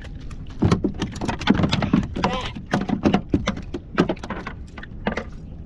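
A rapid, irregular run of clicks, knocks and rattles from handling a fish and fishing tackle on a kayak, over a low rumble, with a short voice sound in the middle.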